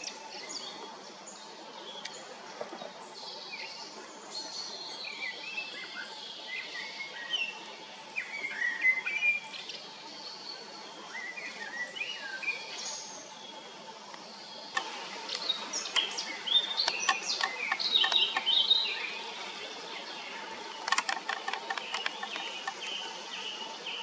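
Several small birds chirping and calling in many short, varied notes, with runs of quick sharp ticks at times, the densest about two-thirds of the way in and again near the end.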